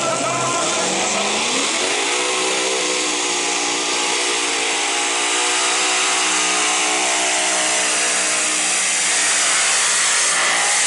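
Modified pulling tractor's supercharged engine at full throttle under the load of the weight sled. Its pitch climbs about a second in, then holds high and steady with a loud rasping exhaust.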